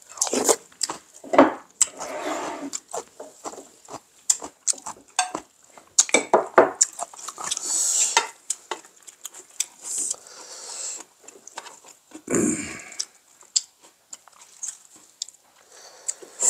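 Utensils clicking and scraping against a metal mixing bowl as bibimbap is stirred and eaten, with chewing and mouth noises in between. The clicks are short and irregular, many of them.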